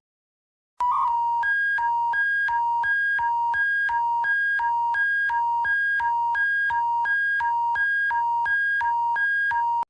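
Synthesized emergency-alert attention tone: two buzzy electronic beeps, a lower and a higher pitch, alternating evenly about one and a half times a second over a steady low hum. It starts about a second in and cuts off abruptly near the end.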